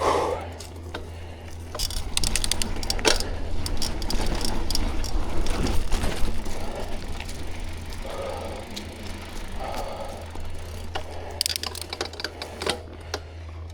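Mountain bike ridden on a trail: irregular clicking and rattling from the chain and drivetrain, loudest around the middle, with a steady low rumble underneath.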